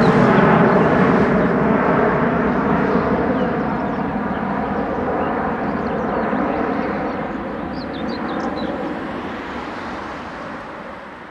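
Airbus A300-600 freighter's twin jet engines at takeoff climb thrust: a steady rumbling jet noise that fades steadily as the aircraft climbs away.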